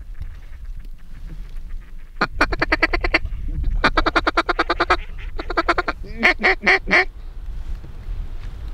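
Duck quacking in three rapid runs of about a second each, with roughly ten short, evenly spaced quacks a second. Under it is a low steady rumble of wind.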